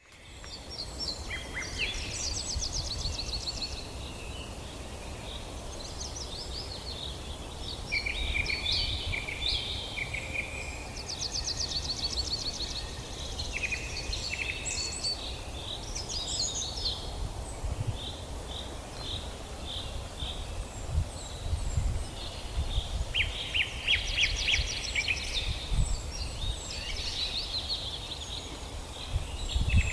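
Several songbirds singing and calling in a forest, with rapid trills and repeated chirps overlapping one another, over a low, uneven rumble.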